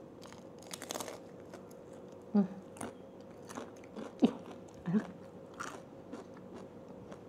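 Close-up crunching and chewing of a fried shrimp wonton with a crisp outer shell, in many short irregular crunches, with a few brief low voice sounds from the eater in between.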